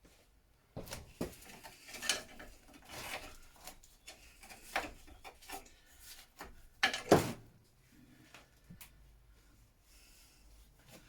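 Irregular knocks, scrapes and rubbing from parts and tools being handled while stripping down a scooter. A sharper clatter about seven seconds in is the loudest, and quieter handling follows.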